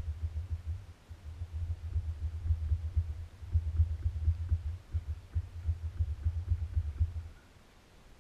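Enduro motorcycle engine idling, heard only as a low, uneven pulsing, cutting off about seven seconds in.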